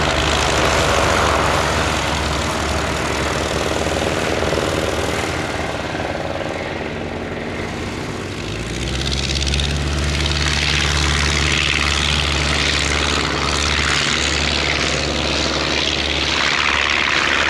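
Propeller engines of replica First World War fighters, Fokker Dr.I triplanes among them, running at take-off power as they roll across the grass and lift off. The engine sound dips about a third of the way in, then swells again from about halfway as a triplane takes off close by.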